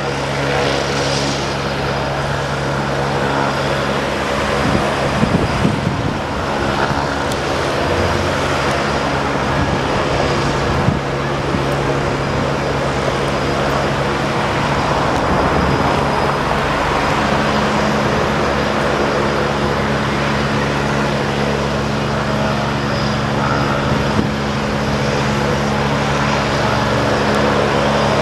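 Agusta twin-engine helicopter running on its helipad with the main rotor turning, readying for take-off: a steady engine and rotor noise with several held low tones.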